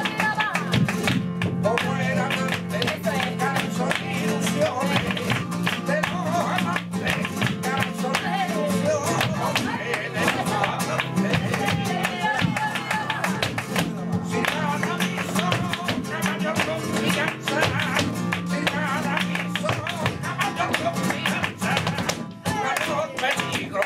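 Live flamenco music for sevillanas: a flamenco guitar strummed in a steady driving rhythm, with a male cante singer's voice rising and falling over it at intervals.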